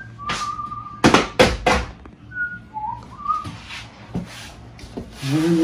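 A person whistling a few short, held notes of a tune. About a second in come several sharp clacks of a hard plastic lid being handled while it is dried with a towel.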